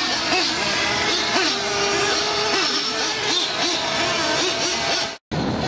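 Small nitro engine of a 1/8-scale RC buggy being driven hard, its high-pitched note rising and falling again and again as the throttle is blipped through the corners. The sound cuts out briefly near the end.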